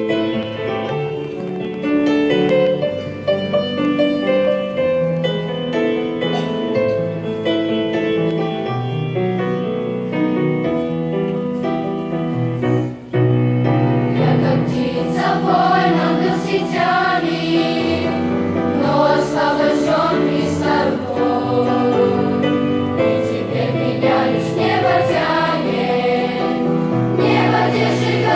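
Instrumental introduction of sustained chords and melody, then after a brief pause about halfway through a children's choir comes in singing a Christian song over the accompaniment.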